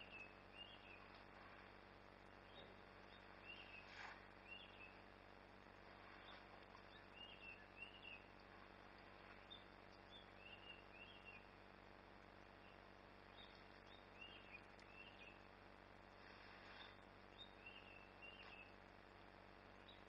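Quiet bush ambience with a bird calling faintly over and over: short high chirps, often in pairs, every second or two. Two brief soft rustles, about four seconds in and near the end.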